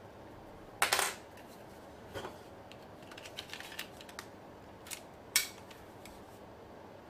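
Metal clicks and clacks of a Walther P22 .22 LR pistol's parts being handled and fitted together. There is a loud cluster of clacks about a second in, a run of small ticks in the middle, and one sharp loud click near the end.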